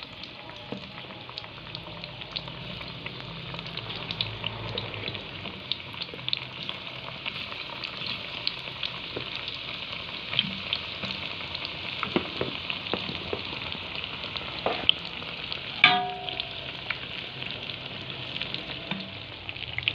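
Tempe slices deep-frying in hot oil in a wok: a steady sizzle with many small crackles. About three-quarters of the way through comes a single sharp, ringing metal clink.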